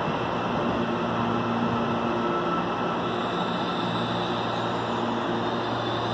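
Electric multiple-unit commuter trains in a station: a steady hum and rolling noise from a train moving along the platform. About three seconds in, the sound shifts to a second electric train pulling in, with a higher hiss and a deeper steady hum.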